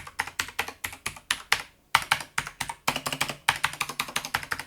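Tronsmart TK09R mechanical keyboard with blue switches being typed on quickly: a fast, uneven run of sharp key clicks. After each key press there is a strange added sound that the owner likens to a metal plate being pressed and echoing in the hollow space inside the keyboard.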